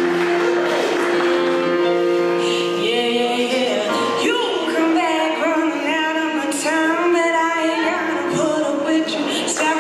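A woman singing karaoke through a microphone and PA over sustained keyboard chords; the chords are held alone at first and her voice, with a light vibrato, comes in about three seconds in.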